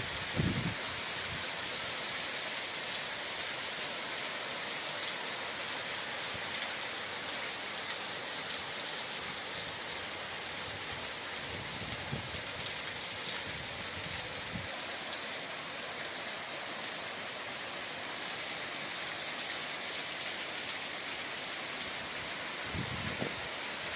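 Steady rain falling, a dense even hiss, with a few brief low thumps, the strongest right at the start and another near the end.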